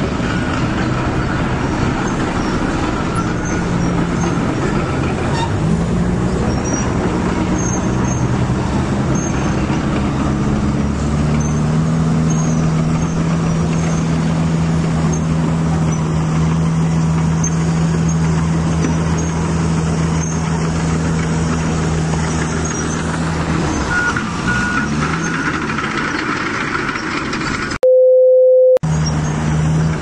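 Steady motor drone from a Huina 1550 remote-control excavator working its grapple arm, its hum shifting in pitch a few times. A short, pure electronic beep sounds near the end.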